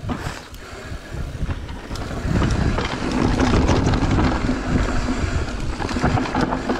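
Mountain bike riding down a dirt trail: wind buffeting the microphone over a rumble of knobby tyres, with many small clicks and knocks from the bike over rough ground. It gets louder about two seconds in.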